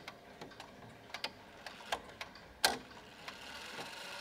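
An ODO 54 chiming clock's brass movement ticking faintly, about three clicks a second. About two-thirds of the way in there is one louder click with a short ring, and near the end the chime train starts to run and lifts the hammers.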